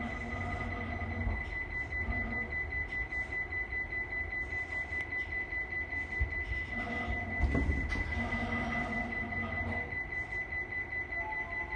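Interior ambience of a stopped Tokyo Metro 16000 series train: a steady high-pitched whine over a low rumble.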